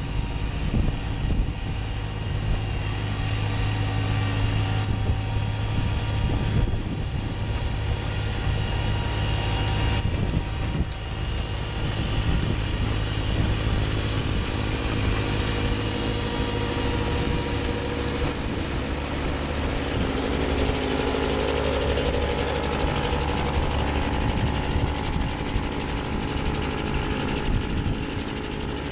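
Kubota B2601 compact tractor's three-cylinder diesel engine running steadily under load, driving a front-mounted PTO snowblower as it clears deep snow.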